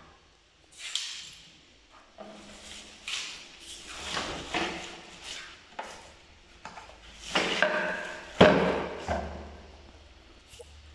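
Parts of a Karcher WD3 wet-and-dry vacuum cleaner being handled and fitted together: a string of knocks, scrapes and rattles, some with a short hollow ring, loudest about eight seconds in. The vacuum's motor is not running.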